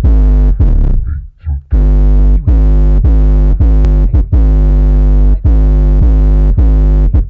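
Bull Audio car subwoofer driven on about 1,000 watts RMS, playing very loud, bass-heavy electronic music. A deep bass note hits again roughly every half second, with a short break about a second in.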